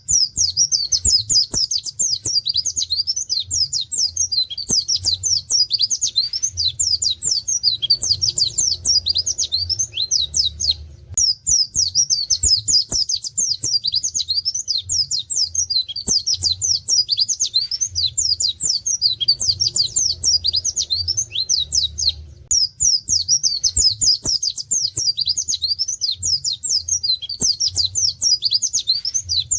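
Pleci (white-eye) singing a fast, almost unbroken run of high chirps, 'wit wit' calls and canary-like trills, pausing briefly twice. A faint low hum runs underneath.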